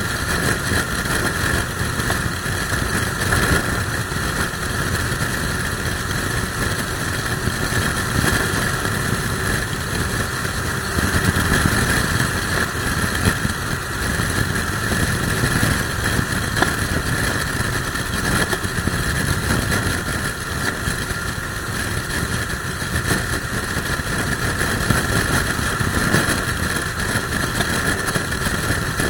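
Suzuki Bandit motorcycle riding at steady speed, its engine running under a continuous rush of wind on the microphone from a strong crosswind.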